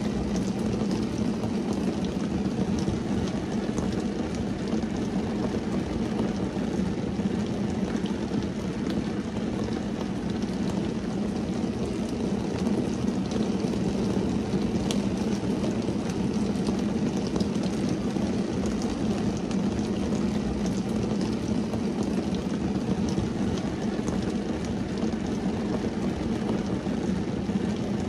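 Steady rain falling on a car's windscreen and roof, heard from inside the car: a dense, even patter over a low steady rumble, with a few sharper drop ticks now and then.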